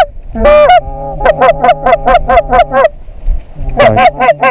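Geese honking: a loud honk at the start, then a fast, even run of honks at about five a second, a short pause, and another run near the end.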